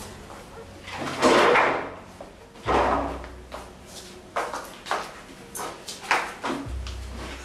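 Scuffling of a physical struggle between two people: irregular rustling and shuffling, with a dull thump about three seconds in and another near the end. A wooden dining chair scrapes and knocks as one of them is pushed down into it.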